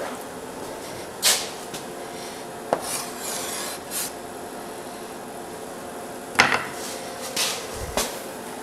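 Chalk scratching and tapping on a blackboard as words are written, in a series of short, separate strokes.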